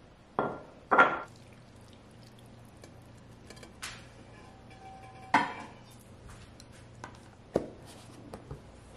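Dishes being handled while chili is served and stored: a wooden spoon knocks against a ceramic pot and bowl twice near the start, another loud knock of dishware comes about halfway through, and a plastic lid is pressed onto a food container with a few small clicks near the end.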